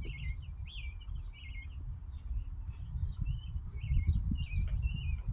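Small songbirds chirping and twittering continuously in many short warbling notes, over a low rumbling noise.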